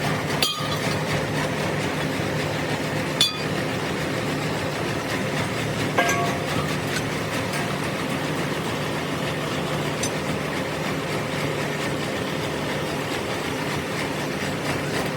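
Steady machine hum in a repair workshop, with three sharp metal clinks about three seconds apart, each ringing briefly.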